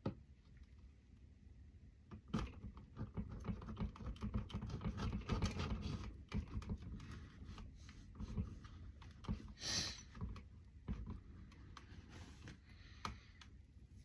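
Knife and cake server clicking, tapping and scraping against the pan and plate while a slice of cheesecake is cut and worked loose: a run of quick light clicks and knocks, densest in the first half, with a short scrape about two-thirds of the way in.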